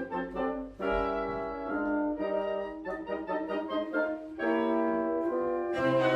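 Chamber orchestra playing a classical piece in sustained melodic phrases, growing fuller and louder near the end.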